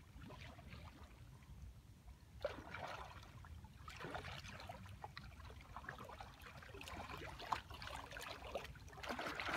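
Kayak paddle strokes: the blades dipping into calm water, with water trickling and dripping off them, a stroke every second or two.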